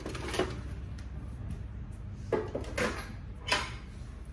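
A few short knocks and clatters, like objects being handled and set down, over a steady low hum.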